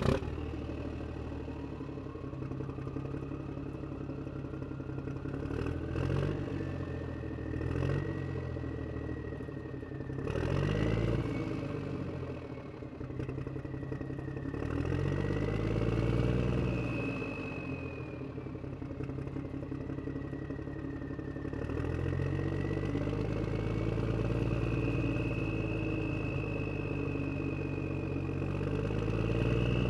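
An engine running, its pitch swelling and falling several times as if revving, with a high whine gliding up and down above it.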